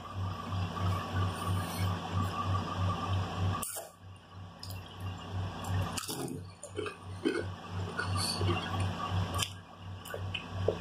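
Close-up chewing and crunching of spicy Doritos tortilla chips and a ham sandwich, with a few sharper crunches, over a steady low hum that pulses about three times a second.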